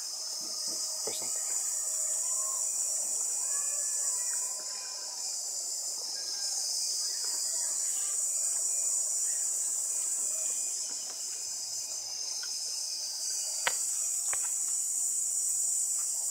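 High-pitched insect chorus buzzing continuously, swelling and easing a few times. Two sharp clicks come about three-quarters of the way through.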